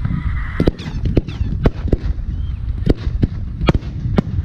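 Aerial firework shells bursting in quick succession: about ten sharp bangs, a quarter to half a second apart, over a steady low rumble, with a few faint whistles in the first couple of seconds.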